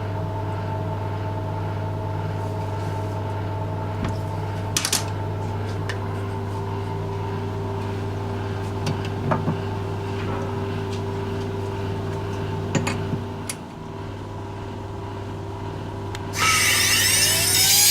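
A workshop machine running with a steady hum, with a few light clicks. Near the end a power tool starts up suddenly with a loud hiss and a whine that rises in pitch and then holds steady as it comes up to speed.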